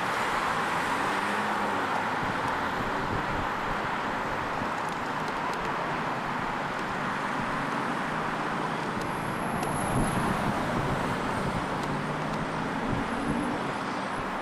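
Steady noise of passing road traffic from a busy expressway, with the low hum of car engines in it.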